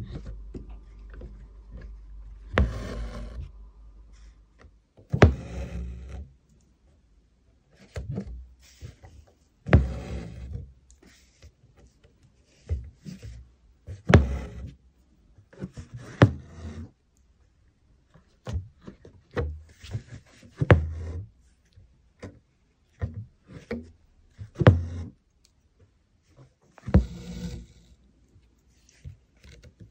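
Hand embroidery on fabric stretched taut in a wooden hoop: the needle taps through the drum-tight cloth and the thread is drawn through with short rasping pulls. These come irregularly, one every second or two.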